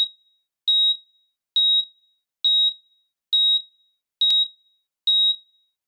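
An electronic beep, a high steady tone, repeating seven times a little less than a second apart, each beep short with a quick fade. A faint click comes with the sixth beep, about four seconds in.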